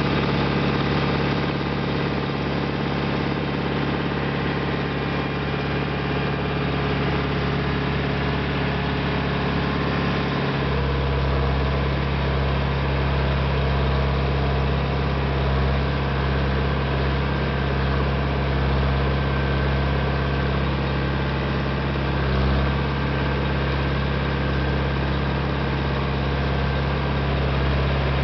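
International Harvester 574 tractor engine running steadily under load while pulling a two-bottom plow through the soil. About ten seconds in, its low end grows stronger and the note sounds deeper for the rest of the time.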